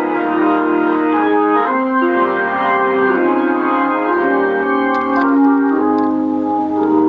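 Organ playing a gospel arrangement in held, sustained chords that shift about once a second.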